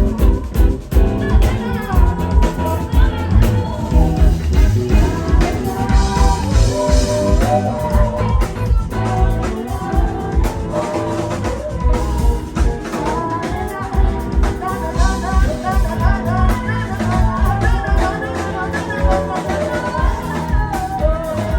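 Live band playing a song, with drum kit, guitar and singing over a steady beat.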